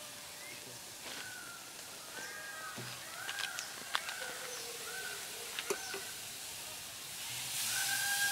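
Spices being stirred in a pot over a wood fire, with a few sharp clicks of the spoon against the pot, while a bird chirps repeatedly in short arched calls. A hiss rises near the end.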